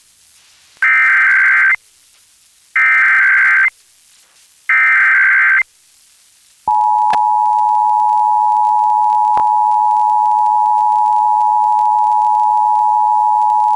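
Emergency Alert System test signal: three short bursts of SAME header data tones, about a second apart. About seven seconds in, the EAS two-tone attention signal (853 and 960 Hz together) starts and holds steady.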